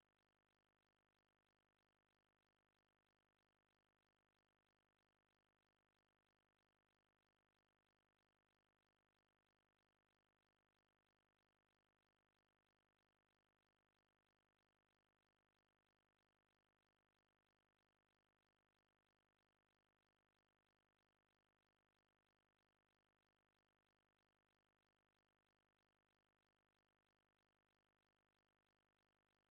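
Near silence: only a faint, unchanging noise floor, with no audible sound.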